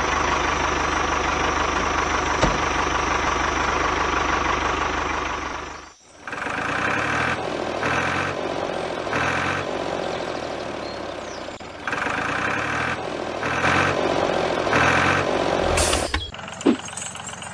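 Tractor engine running, cutting off sharply about six seconds in and giving way to a second engine sound that swells and fades roughly once a second. A short hiss comes near the end.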